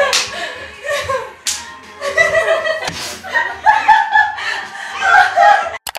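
Women laughing loudly and shrieking, mixed with several sharp slaps.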